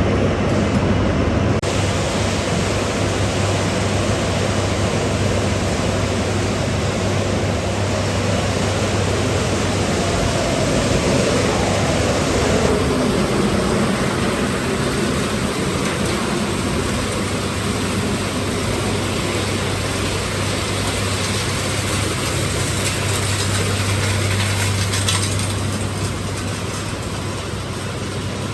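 Copper-aluminium radiator recycling line running: a steady, dense mechanical din of shredding, crushing and sorting machinery over a constant low hum.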